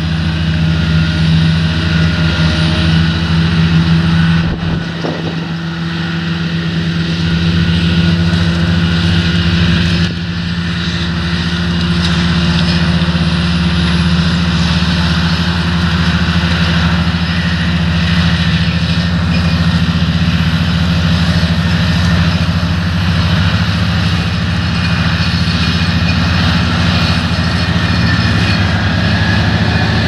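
Grimme Varitron 270 self-propelled potato harvester at work, its diesel engine running steadily under load as it lifts potatoes. The sound dips briefly about five seconds in.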